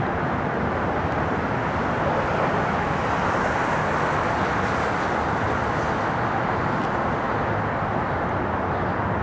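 Steady, distant rumble of an Airbus A380's four jet engines as the airliner comes in on approach, swelling slightly a couple of seconds in.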